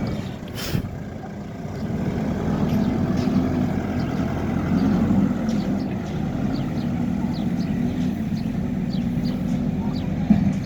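Hidromek HMK 102S Alpha backhoe loader's diesel engine running steadily, dipping briefly near the start and picking up again about two seconds in. There is a sharp click early on, and light clicks throughout.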